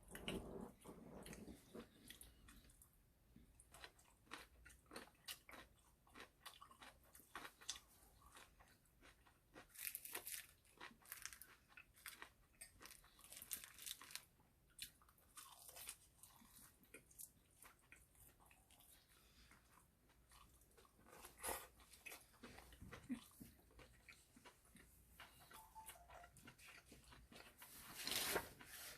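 Quiet eating sounds at a meal: scattered crunching and chewing with small clicks, a little louder a few times.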